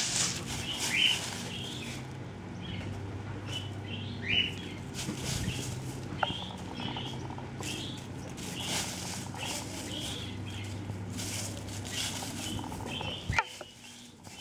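Buff Orpington and laced Wyandotte hens scratching through a pile of dry fallen leaves, the leaves rustling and crackling in repeated bursts, with a few short high chirps.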